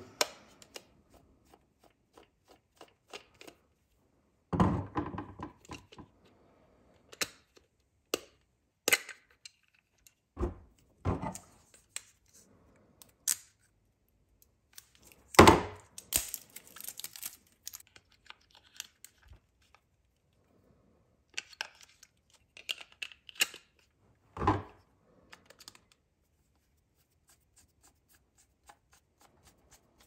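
Small plastic clicks, knocks and rattles as AAA batteries are fitted into a Klein Tools RT250 outlet tester, its screw-down battery cover worked with a Phillips screwdriver. One louder knock comes about halfway through.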